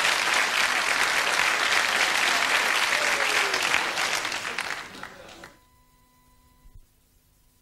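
Studio audience applauding. The applause thins after about four seconds and cuts off abruptly about a second and a half later, leaving near silence with a faint steady hum.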